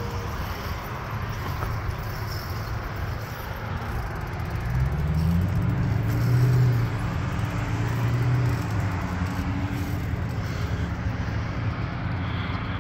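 Road traffic on a multi-lane road, a steady hum of tyres and engines. A heavier vehicle's engine grows louder about five seconds in and passes by over the next few seconds.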